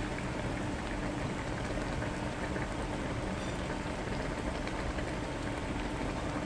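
Beef bulgogi simmering in its sauce in a steel pot: a steady bubbling hiss with small scattered pops, over a faint steady hum.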